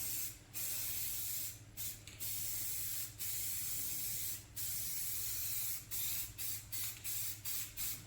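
Spray paint hissing on and off in repeated passes: longer sprays of about a second each at first, then shorter, quicker bursts toward the end, laying a patina finish on a homemade dashboard panel. A faint steady low hum sits underneath.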